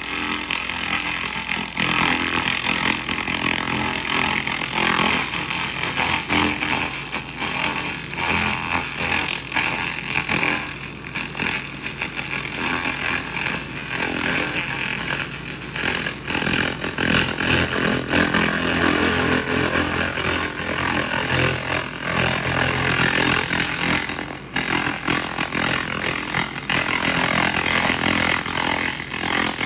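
SFX 2000 laser rust remover ablating rust off metal: a steady, loud hiss packed with fine, rapid crackle, its level wavering as the beam sweeps.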